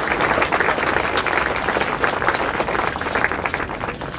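Audience applauding, a dense patter of hand claps that thins out and fades near the end.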